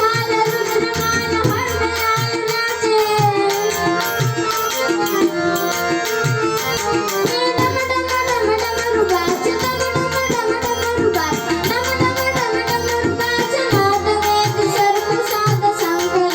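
A chhand verse sung to tabla accompaniment: a bending vocal melody over a steady run of low drum strokes.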